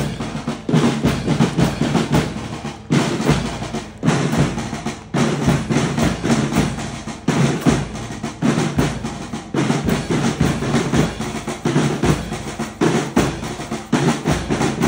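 A marching band's drum section, snare drums and bass drum, playing a repeating marching cadence with drum rolls.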